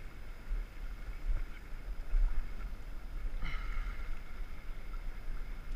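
Wind rumbling on the microphone over sea water washing among coral rocks, with a brief brighter wash about three and a half seconds in.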